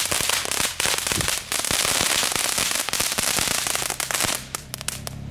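Small category 1 crackling firework going off: a dense, rapid crackle of many tiny pops that thins out to a few last pops near the end.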